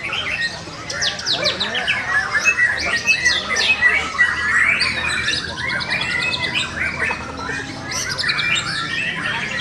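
White-rumped shamas singing in a contest ring, several birds at once: a dense, loud mix of whistles, fast trills and chattering notes with no pause.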